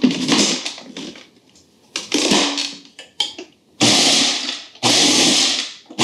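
Food processor pulsed in four short bursts of about a second each, its blade chopping toasted almonds and dried fruit (prunes, figs, raisins) toward a coarse meal rather than a paste.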